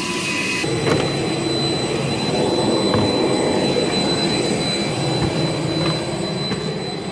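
Steady whine and rumble of a jet turbine running on the airport ramp, with a thin high tone held throughout.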